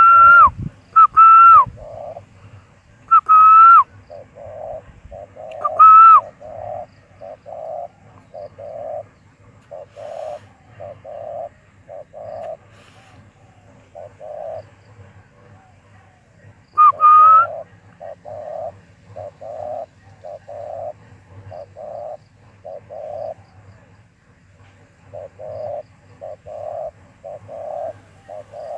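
Doves cooing: a long run of short, low coos repeated about once or twice a second. Over them come several loud, higher bird calls that rise and then drop, four in the first six seconds and one more about seventeen seconds in.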